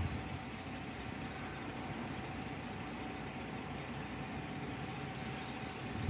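Vehicle engine idling: a steady low hum with a faint, thin steady tone above it.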